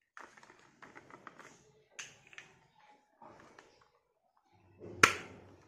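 Plastic toy parts clicking and rattling as black plastic wheels are fitted onto the thin axle rods of a toy jeep, with one sharp, loud snap about five seconds in as a wheel is pushed on.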